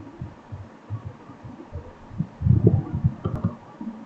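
Low, muffled thumps and rumbling at an irregular pace, loudest a little past the middle.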